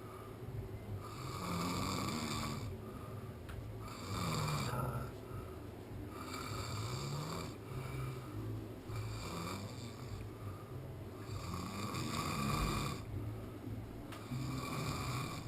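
A sleeping person snoring, about six snores one every two to three seconds.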